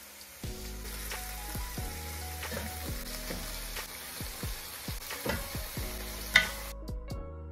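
Raw chicken pieces sizzling and crackling as they are dropped into a hot pot on a gas stove, with one sharp click near the end.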